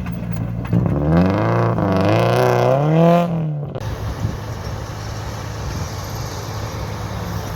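Rally car engine revving hard, its pitch climbing and dropping through quick gear changes for a couple of seconds before cutting off suddenly, followed by a steady rushing noise.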